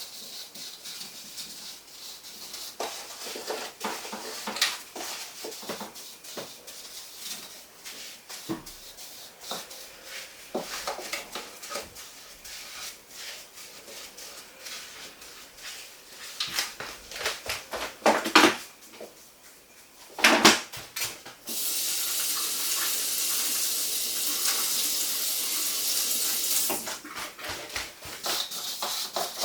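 Containers and dishes being handled while clearing out a fridge: scattered clatter and knocks, with two louder knocks about 18 and 20 seconds in. A steady hiss follows for about five seconds.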